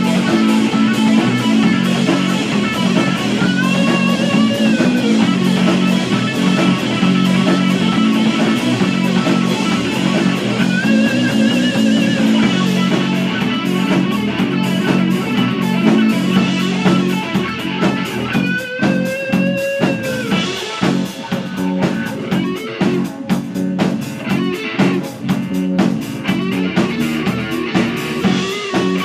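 Rock band playing, led by electric guitar with notes bent up and held a few times, over bass and drums that become more prominent in the second half.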